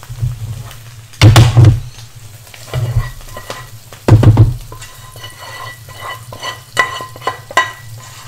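A spatula scraping and tapping against a non-stick frying pan as fried paste is scraped out into another pan, over the sizzle of frying. Two heavy clunks of the pans stand out, about a second in and again about four seconds in.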